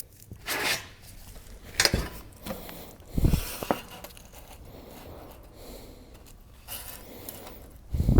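Scattered scrapes, rustles and knocks from butyl tape being applied to a metal valley cleat, with a louder thump near the end.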